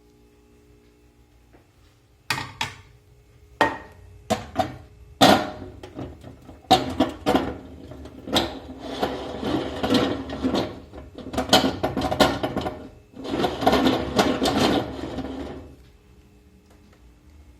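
A microwave's glass turntable plate knocking and rattling: a few sharp knocks, then two long stretches of rattling and scraping that stop a little before the end.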